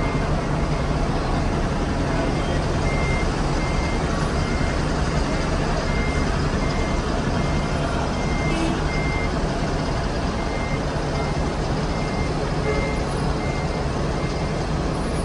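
A coach's engine running low and steady as it reverses, with its reversing alarm sounding a regular series of short, high beeps.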